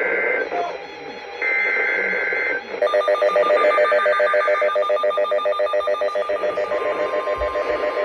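EAS digital data bursts from NOAA weather radios: second-long two-tone buzzing chirps at the standard SAME tones, followed from about 3 s in by the radios' rapid warbling alert alarm, with a steady tone joining near the end. These signal a new alert coming over the radios.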